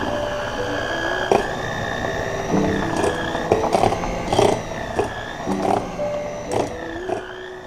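Lord Eagle electric hand mixer running with a steady, slightly wavering motor whine as its wire beaters cream butter in a stainless steel bowl. The beaters click against the bowl now and then.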